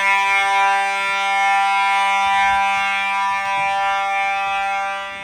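Simplex 4903-9219 fire alarm horn sounding continuously with a steady, unbroken horn tone.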